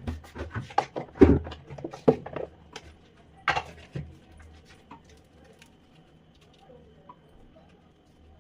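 A run of sharp knocks and clatters, with the loudest strikes about a second, two seconds and three and a half seconds in, thinning to a few faint ticks after about four seconds.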